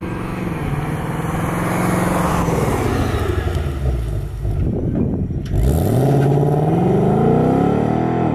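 2024 Ford Mustang GT's 5.0-litre V8 running under way. Its note holds, then falls away about four seconds in. After that it climbs steadily as the car accelerates, and drops abruptly near the end as the gearbox shifts up.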